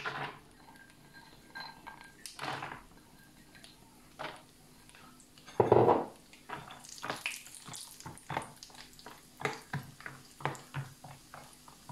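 Blanched almonds dropped into hot oil in a frying pan, with a louder knock about halfway through as the rest go in. Then a metal spoon stirs them, clinking and scraping against the pan in quick strokes over the faint bubbling of the oil.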